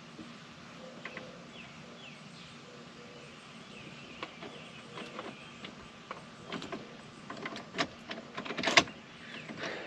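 Faint steady hum with birds chirping, then light clicks and knocks, a few scattered around the middle and a dense run near the end, the loudest just before it ends.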